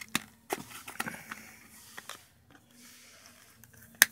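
Short, sharp clicks of a smartphone's snap-on back cover being pried loose along its edge with a fingernail, a few scattered clicks and one loud click near the end.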